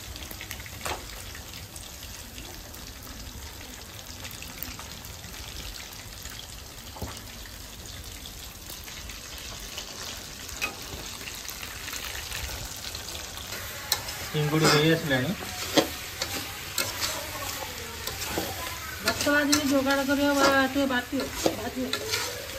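Fish frying in hot oil in a pan: a steady sizzle, with a few sharp knocks of a spatula stirring against the pan.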